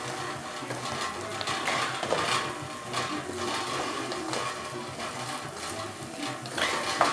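Background music, with occasional clinks and scrapes of a spoon stirring in a cooking pot, the loudest clatter near the end.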